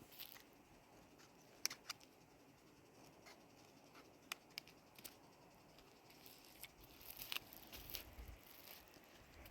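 Near silence broken by faint, irregular clicks and light taps, with a soft low rumble near the end.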